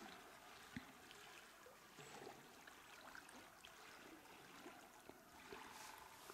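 Near silence: a faint, steady murmur of river water, with a few small clicks.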